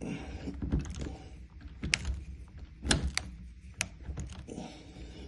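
Sharp clicks and knocks of a hand tool on metal door-lock hardware as a screw is worked out, four clicks between about two and four seconds in.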